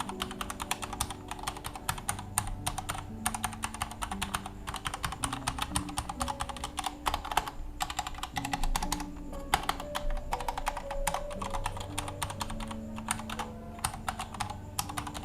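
Typing on a Vortex Race 3 mechanical keyboard with Cherry MX Red switches and an aluminium case: a fast, uneven stream of keystroke clacks, over soft background music with held low notes.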